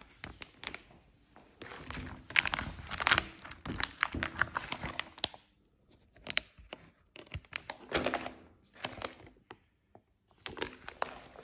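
Clear plastic vacuum-packing bag crinkling and crackling as it is handled, in irregular bursts with short pauses between them.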